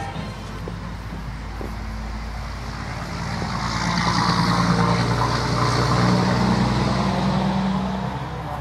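A car's engine running close by, growing louder through the middle and easing off again near the end.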